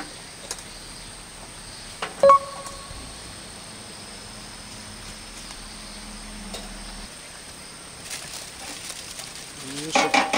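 A sharp metal clink about two seconds in that rings briefly, the tongs and lid against the metal pizza-grill pan, over a steady outdoor background with a high, even hum. Near the end, aluminium foil crinkles as the baked pizza is lifted out of the pan on it.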